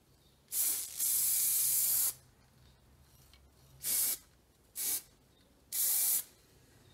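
Aerosol spray can of rust primer being sprayed in five hissing bursts. Two come close together near the start and last about a second and a half in all, followed by three short ones.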